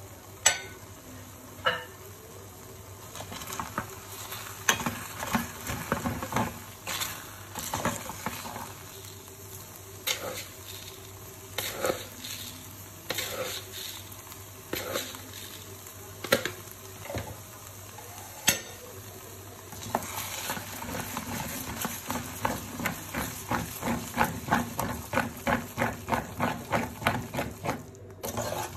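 Metal spoon stirring vermicelli in a metal pot, knocking and scraping against the pot's sides, over the steady hiss of the simmering pot. Near the end the stirring turns to quick, regular strokes, about two a second.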